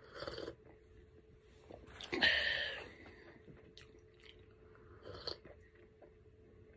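A person drinking from a tumbler in sips and swallows, the loudest about two seconds in, over a faint steady hum.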